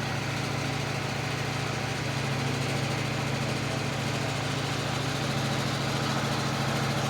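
An engine running steadily at an even speed, with no revving.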